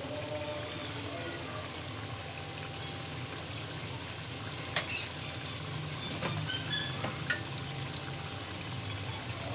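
Kababs simmering in oily masala gravy in an aluminium pot, a steady sizzle and bubble as the gravy cooks down until the ghee rises to the top. A few sharp clicks come about halfway through.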